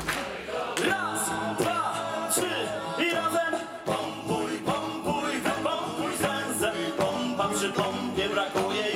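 Male a cappella vocal group singing a shanty in close harmony over a steady percussive beat.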